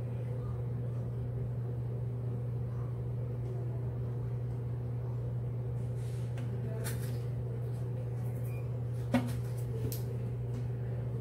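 A steady low hum, with a few faint handling clicks and rustles from about six seconds on and one sharp click about nine seconds in, as fingers work the neck of a rubber balloon.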